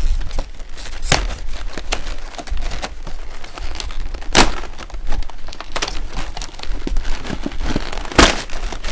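Doll packaging being handled and pulled open: continual crinkling with sharp cracks and snaps, the loudest about a second in, midway and near the end.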